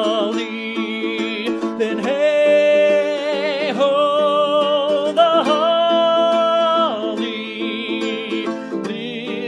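Folk song: a held, wavering sung melody over a plucked string accompaniment.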